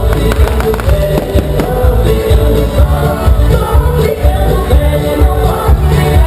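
Loud music with a heavy bass beat and a singing voice, with a few sharp firecracker pops in the first part.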